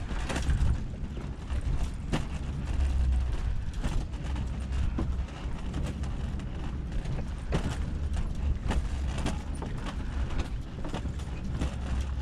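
Irregular knocks and rattles over a steady low rumble while moving along wooden pier planks.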